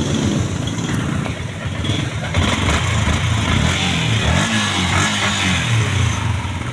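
Yamaha Sniper 150's single-cylinder engine running, revved so its pitch rises and falls a few times.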